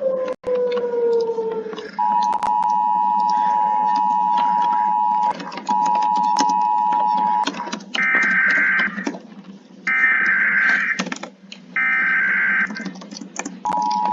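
Emergency Alert System alarm: a siren gliding down in pitch for about two seconds, then the two-tone EAS attention signal, interrupted briefly. Next come three short bursts of the higher-pitched data-header tones a second apart, and the two-tone attention signal starts again near the end. A crackly noise runs underneath.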